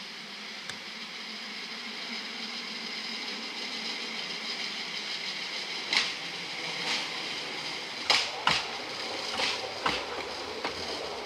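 Jeep hi-rail vehicle rolling along railway track toward the microphone, its running noise growing steadily louder as it nears. From about six seconds in come several sharp clacks as its wheels pass over the rails.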